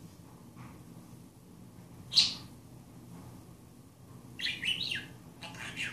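Budgerigar chirping: one sharp chirp about two seconds in, then a short run of quick, wavering chatter near the end.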